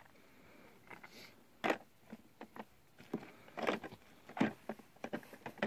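Handling noise from kidding supplies: an irregular run of short clicks, knocks and rustles, like small plastic items being picked up, opened and set down.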